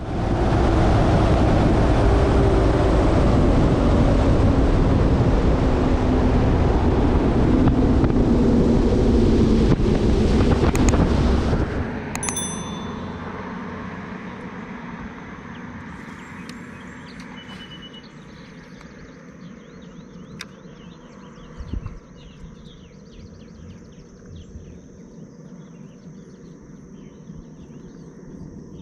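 A bass boat's outboard motor running at speed with heavy wind and water rush, which cuts off abruptly about 12 seconds in. After that come a steady, faint high insect drone, scattered light clicks and a single thump.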